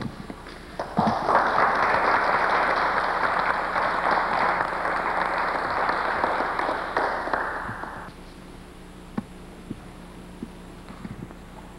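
A seated audience applauding, starting about a second in and dying away after about seven seconds. A few faint knocks follow.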